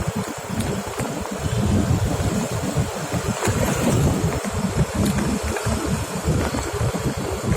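Vehicle engine and road noise, with a heavy, gusting rumble of wind on the microphone.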